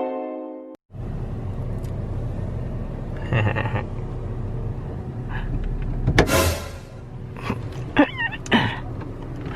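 A plucked musical note rings and is cut off under a second in, then a steady low rumble with a few brief clatters and short voice-like sounds over it.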